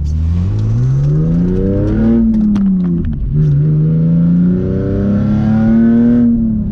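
Car engine accelerating under load. The revs climb, fall at a gear change about three seconds in, climb again, then ease off near the end. The engine pulls cleanly, its misfire just fixed.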